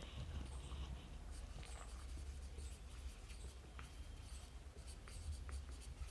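Faint marker pen writing and drawing: short scratchy strokes and light taps, over a steady low hum.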